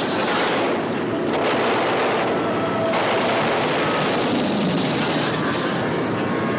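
A boat's engines running steadily at speed, a loud even drone.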